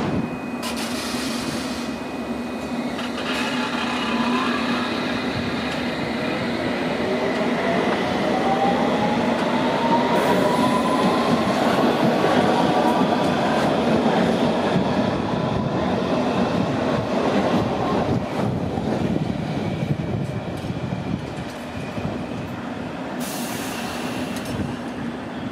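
London Underground S Stock train pulling out of the platform, its traction motors whining up in pitch as it accelerates over the rumble of wheels on rails. It is loudest about halfway through, then dies away as the train leaves.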